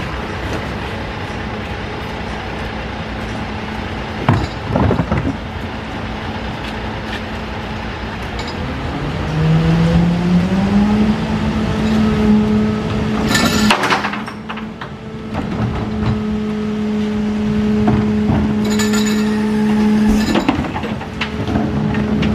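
Mercedes Econic 2635 garbage truck running, its engine revving up about ten seconds in and holding higher as the MUT rear loader's lifter tips a plastic wheeled bin into the hopper. Hard plastic clatters come a few times as the bin knocks against the lifter and hopper.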